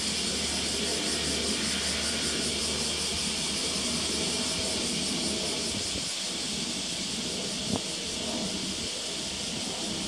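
Steady outdoor background: an even high hiss over a low rumble that fades about six seconds in, with one short click near the end.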